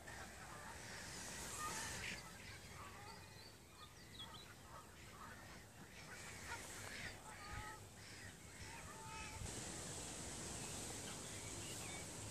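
Black-headed gull colony calling: many short, harsh gull calls, faint and overlapping, scattered throughout. A steady hiss comes in for the last few seconds.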